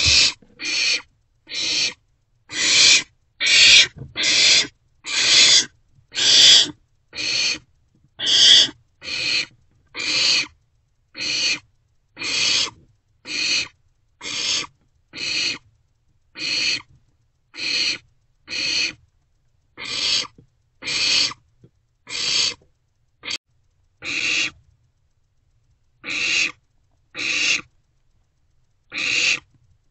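Barn owl owlets giving their harsh hissing begging calls, short rasping hisses repeated about once a second, with a couple of short pauses near the end.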